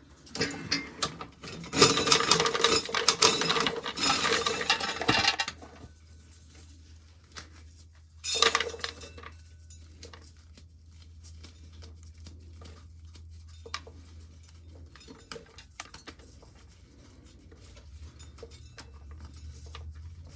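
Dried corn kernels rattling and clinking into a metal tin can as corn is shelled: a dense rush for about five seconds, a second short burst about eight seconds in, then scattered single kernels ticking.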